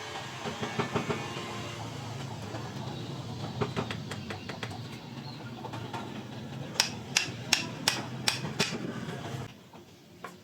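A steady low rumble with scattered knocks, then a run of about six sharp taps, roughly three a second, of a hand tool striking during masonry work; the rumble cuts off shortly before the end.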